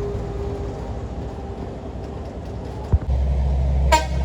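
Road vehicle engines rumbling steadily. About three seconds in there is a click and the low rumble gets louder, and near the end a brief high-pitched tone sounds.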